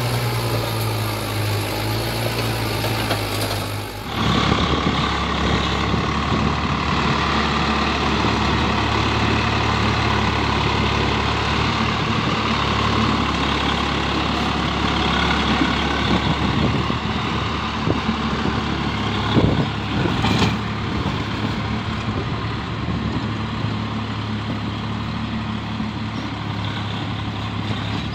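Swaraj tractor diesel engine running under load while pulling a loaded trolley; about four seconds in it cuts to a second Swaraj 4x4 tractor's diesel engine working steadily while driving a rotavator through the soil.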